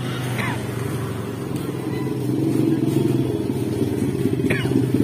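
A motorcycle engine running and drawing closer, growing louder toward the end. Two short high chirps sound, about half a second in and again near the end.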